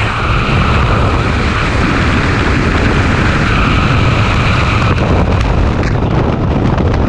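Loud rushing wind buffeting the camera microphone as a skydiver falls away from the aircraft. In the last couple of seconds rapid fluttering sets in, as the parachute begins to deploy on a hop-and-pop jump.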